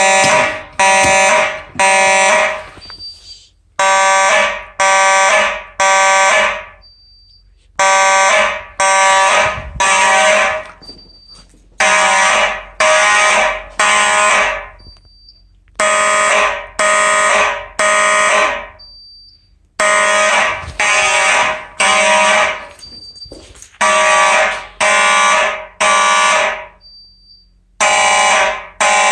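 Simplex 4903-series electromechanical horns sounding together in temporal code 3: three buzzing blasts of about half a second, then a pause, with the pattern repeating about every four seconds. This is the fire alarm system in alarm, signalling evacuation. A brief faint high chirp comes in each pause.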